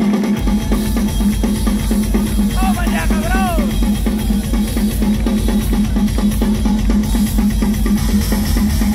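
Live rock drum solo on a full drum kit: fast, dense strokes on drums and cymbals with kick drum underneath, over a steady low hum.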